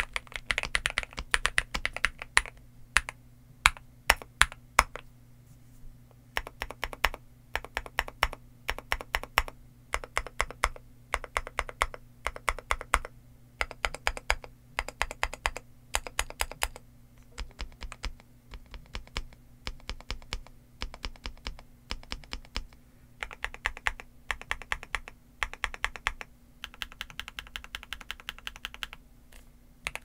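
NuPhy Gem80 mechanical keyboard with an aluminum plate, gasket strip mount, NuPhy Mint switches and PBT MSA keycaps being typed on. It starts with fast continuous typing for the first few seconds, then goes into bursts of keystrokes separated by short pauses, with sparser single presses in the second half.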